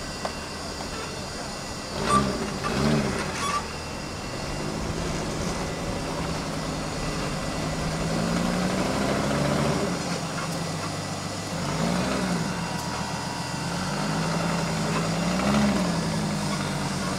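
A custom rock-crawler buggy's engine revving up and down in repeated bursts under load as it crawls up a steep rock face, with a quick double rev about two seconds in.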